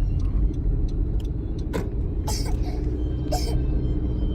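Steady low road rumble of a moving car, heard from inside the cabin, with a few short sharp noises about two and three seconds in.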